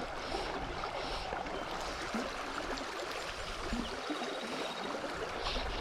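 Small trout stream flowing steadily over its bed, with wind buffeting the microphone in a low uneven rumble.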